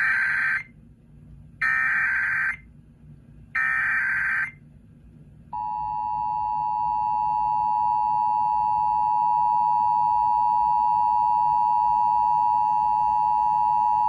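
Emergency Alert System transmission on FM radio: three short warbling data bursts of the SAME header, about two seconds apart, then the steady two-tone EAS attention signal, held for about eight seconds and cutting off abruptly.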